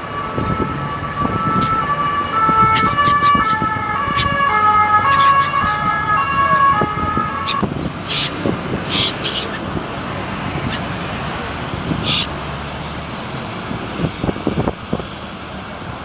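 Emergency-vehicle siren alternating between two pitches for about seven and a half seconds, then stopping, over steady wind and traffic noise.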